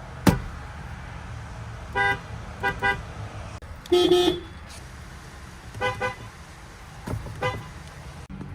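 Short car horn beeps from several different cars, cut one after another over a steady low traffic rumble: one beep about two seconds in, a quick double beep, a lower, longer honk around the middle, and another double beep. A sharp click comes just before the horns start.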